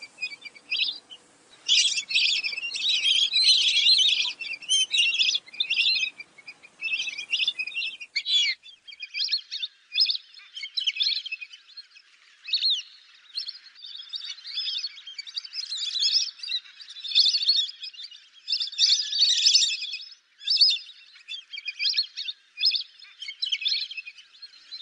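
A flock of fulvous whistling ducks calling, with many short, squeaky whistled calls overlapping almost without a break. A faint low background noise drops away abruptly about eight seconds in, where the recording changes.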